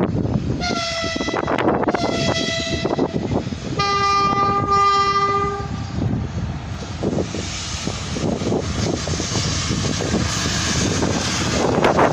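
2ES6 Sinara electric locomotive horn: two short, higher blasts followed by a longer, lower blast lasting about two seconds, sounded by the crew in greeting. After that come wind buffeting the microphone and the rumble of the passing freight train.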